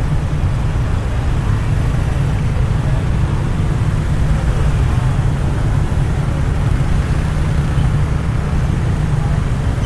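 Steady traffic noise from vehicles crawling in a jam, dominated by a heavy, continuous low rumble.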